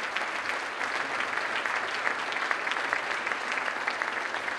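Audience applauding steadily: many hands clapping at once, a dense patter that holds level throughout.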